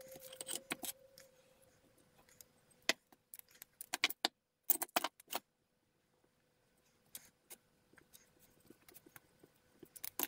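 Steel channel pieces clinking and knocking against each other and the workbench as they are handled and laid out, in a few short clusters of clatter during the first half, then only scattered light clicks.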